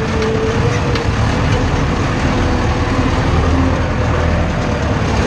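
Tractor engine running steadily, heard from the driver's seat, as the tractor pulls a potato hiller along the rows.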